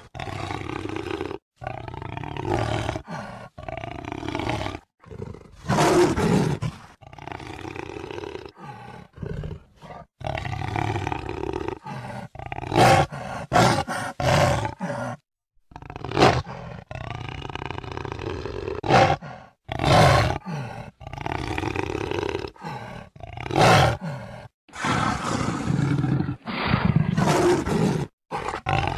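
Jaguar roaring, a long string of separate calls spliced together with abrupt cuts and short silent gaps between them. Several calls, about six, twelve to sixteen, twenty and twenty-four seconds in, are louder than the rest.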